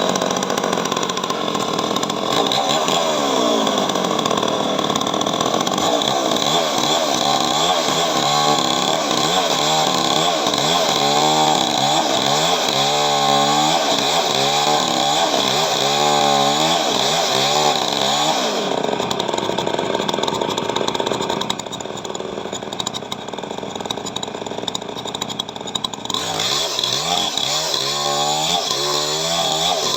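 Two-stroke chainsaw running at high speed while cutting coconut wood, its pitch wavering up and down under the load of the cut. About 19 seconds in it runs steadier and a little quieter for several seconds, then the wavering returns near the end.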